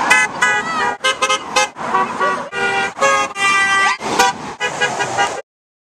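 Car horns honking in a run of short and longer blasts, with voices shrieking between them. The sound cuts off abruptly a little after five seconds.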